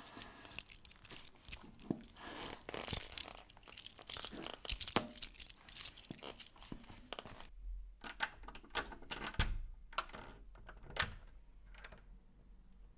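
A bunch of metal keys jangling and clicking while being tried in a door lock, with leather creaking. The rattling is dense for about the first seven seconds, then thins to a few separate clicks and knocks.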